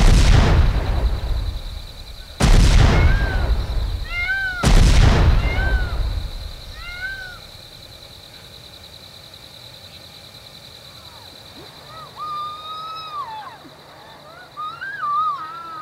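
Three deep booms about two seconds apart, each ringing out as it fades. A steady high trill runs underneath, with short chirping calls, and near the end a cat meows with long wavering cries.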